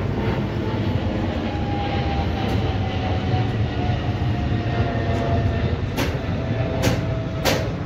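Twin-engine jet airliner flying overhead: a steady low roar with an engine whine that falls slowly in pitch as it passes. A few sharp clicks near the end.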